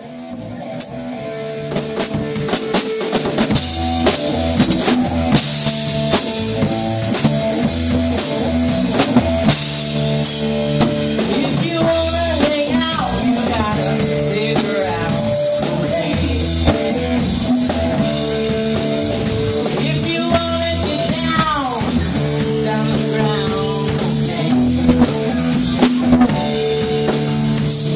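Live rock band playing: drum kit, electric guitars and bass with a steady beat, fading in over the first couple of seconds. A long falling pitch slide comes about three quarters of the way through.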